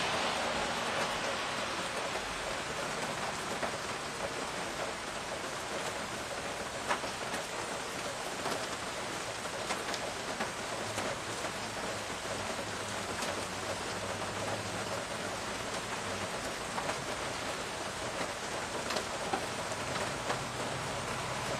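Steady rain falling, with single drops ticking close by now and then. A louder swell of hiss dies away in the first two seconds.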